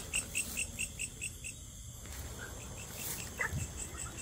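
A cricket chirping in a steady pulse, about four chirps a second, stops about a second and a half in. A short falling sound comes near the end.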